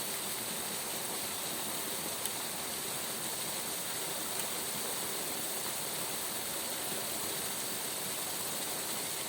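Waterfall rushing: a steady, even hiss of falling water without a break, with two faint clicks about two and four seconds in.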